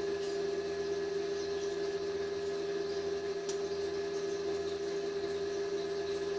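A steady mechanical hum with one constant mid-pitched tone, from a machine running in the workshop, with a faint click about three and a half seconds in.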